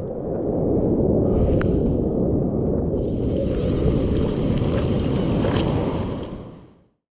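Whitewater rushing and churning around a GoPro held at the surface, with wind buffeting the microphone and a couple of brief splash clicks; the sound fades out near the end.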